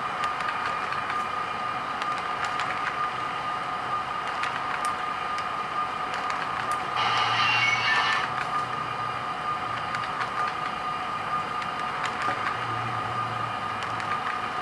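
HO scale model train of double-stack container cars rolling past on the track: a steady hum with irregular small clicks from wheels on the rails. It grows louder for about a second, seven seconds in.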